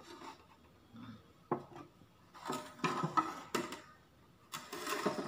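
A toy building being turned around on a glass tabletop: a few light knocks and short scrapes, irregular and bunched in the middle and near the end.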